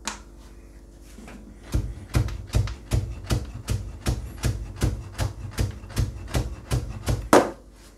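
Nakiri kitchen knife chopping a carrot into thin strips on a cutting board: quick, even knocks of the blade on the board, about four a second, starting about two seconds in, with one louder knock near the end.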